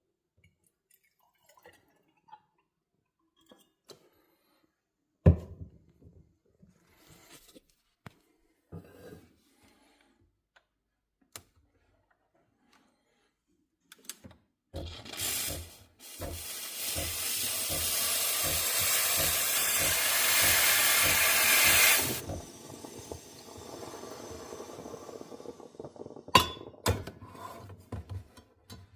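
Espresso machine steam wand hissing: a brief burst, then a loud steady hiss for about six seconds that drops to a quieter hiss for a few seconds more. Light clicks and a sharp knock from handling the machine and jug come before it.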